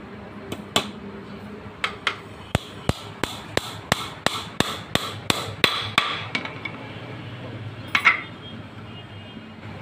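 Hammer striking wood repeatedly, a few scattered blows and then a steady run of about three blows a second, followed by one louder, rattling knock near the end.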